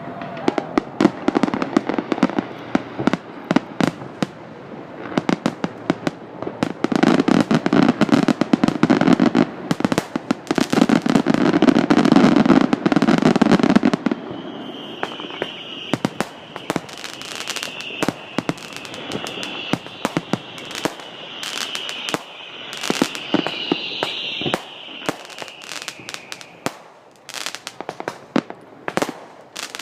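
Aerial fireworks bursting in a dense, rapid barrage of bangs and crackles for about the first fourteen seconds. Then a sustained high-pitched tone runs for about twelve seconds under scattered bangs, and the bangs thin out near the end.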